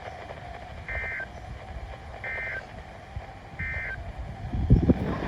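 Three short, identical bursts of Emergency Alert System digital data tones, evenly spaced about a second and a half apart: the brief end-of-message code that closes an alert. A steady background noise runs underneath, and near the end a loud low rumble.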